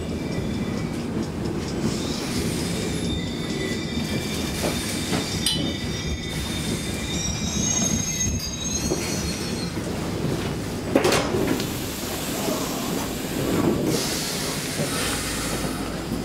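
Stockholm Metro C6 train running and slowing for a station, its steel wheels squealing in several thin high tones for a few seconds. There is a single loud clunk about eleven seconds in.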